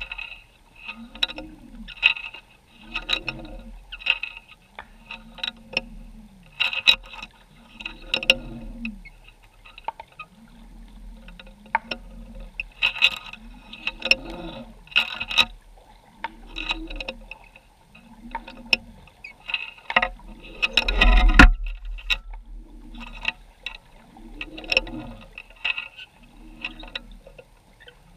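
Underwater audio from a GoPro in its housing on the seabed: clicks and knocks roughly once a second, each with a low swell that rises and falls, and one much louder thump about three-quarters of the way through.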